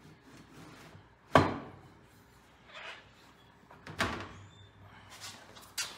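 Three sharp knocks and a fainter one as Kohler Magnum 18 engine parts are handled and set into place during assembly. The first, about a second and a half in, is the loudest.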